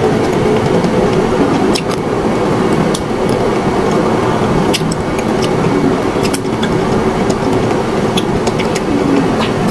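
A few sharp cracks of teeth biting into a frozen strawberry ice cream bar's hard coating, over a steady loud background noise.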